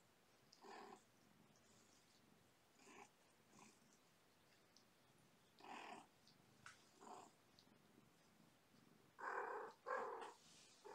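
Kittens playing and scampering around a fabric hammock bed: a scatter of short, faint sounds, the two loudest about nine and ten seconds in.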